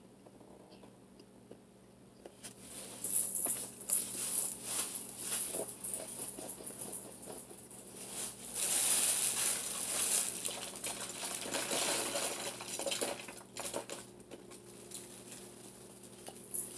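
Crunching and crackling of dry, chalky arrowroot-starch chunks. It starts about two seconds in and goes in uneven spells of crackle and clicks, loudest around the middle.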